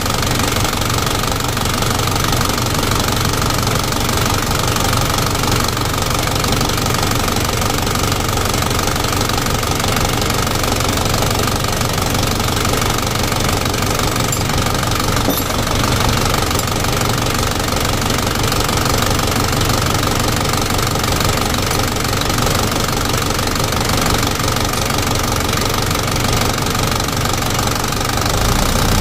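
Toyota Dyna 130 HT's diesel engine idling steadily with diesel knock.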